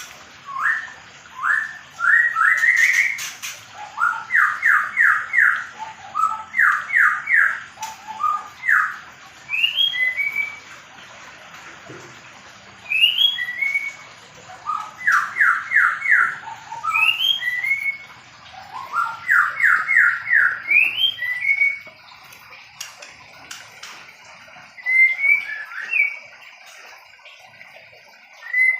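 White-rumped shama calling: phrases of short, rising whistled notes, many in quick runs of three or four. The phrases repeat every second or two, with a lull shortly before the end.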